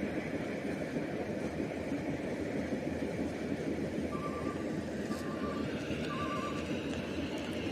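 Rice combine harvester's engine running steadily as it works through the paddy. About four seconds in, three short bursts of electronic beeping, like a reversing alarm.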